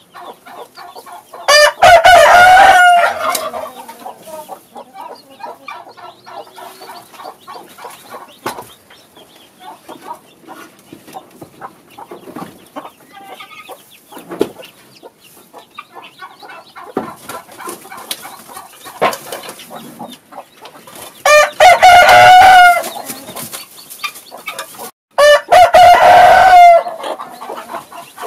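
Roosters crowing three times, once near the start and twice close together near the end, with quieter clucking of chickens in between.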